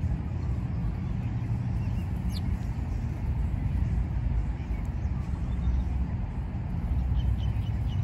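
Steady low outdoor rumble, with a few faint, high bird chirps about two and a half seconds in and again near the end.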